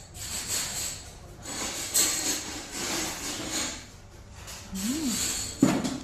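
Restaurant background noise while a woman chews a bite of braised duck head, with a short rising-and-falling hum about five seconds in.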